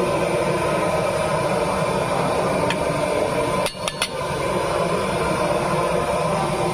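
Oil and spices sizzling in a steel wok over a gas burner, a steady rushing noise. About halfway through, the metal spatula clinks against the wok about three times in quick succession.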